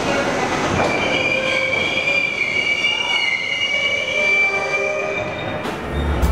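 Subway train running, its wheels squealing on the rails in a high, steady screech from about a second in until about five seconds in, over the loud rumble of the moving train. Music comes in right at the end.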